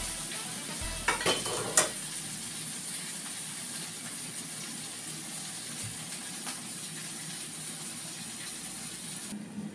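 Food frying in a pan, a steady sizzle, with a few clatters of a utensil against cookware one to two seconds in; the sizzle cuts off abruptly near the end.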